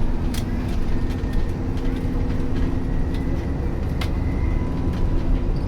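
Alexander Dennis Enviro400 Trident double-decker bus heard from inside the passenger cabin: a steady low engine and road rumble with a constant hum, and scattered sharp clicks through it.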